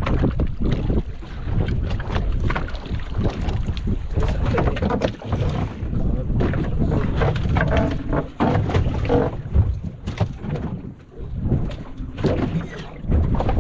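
Wind rumbling on the microphone aboard a small fishing boat, with repeated knocks and thuds on the boat as a catfish is hauled aboard and laid on the deck.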